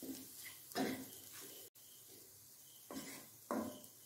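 Wooden spatula stirring and scraping a scrambled egg and onion mixture around a nonstick kadai, a few short scraping strokes over a faint sizzle.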